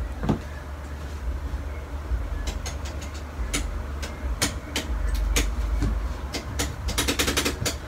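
Low rumble of a handheld phone being moved about, with scattered sharp clicks and knocks and a quick run of clicks near the end.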